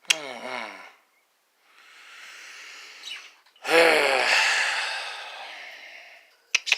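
A person's long, loud voiced sigh, fading away over about three seconds, preceded by a softer breath. A run of quick light clicks starts near the end.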